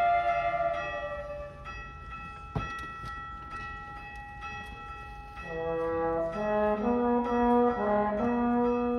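School orchestra playing: held chords fade into a quiet, thin passage with one sharp percussive hit about two and a half seconds in. Fuller, louder chords with a moving bass line come in about halfway through.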